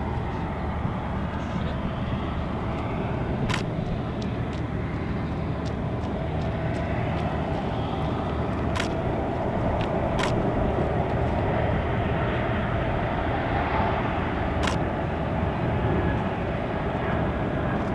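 Steady aircraft noise on an airport apron, a low hum with a mid-pitched drone that swells slightly partway through, broken by about five sharp clicks.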